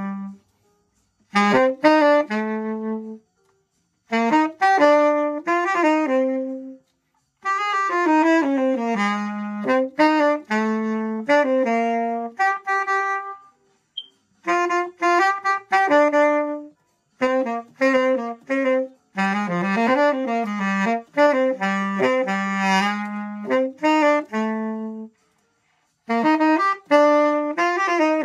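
Unaccompanied tenor saxophone playing a jazz tune in phrases of quick notes, with short silences between the phrases.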